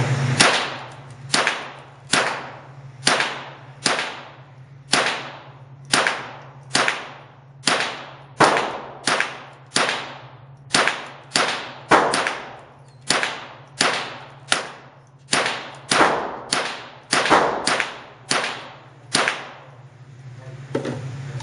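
Smith & Wesson M&P 15-22 .22 LR semi-automatic rifle fired in slow, steady semi-auto: about two dozen sharp cracks at a little over one per second, stopping shortly before the end. Each shot rings out in the echo of an indoor range.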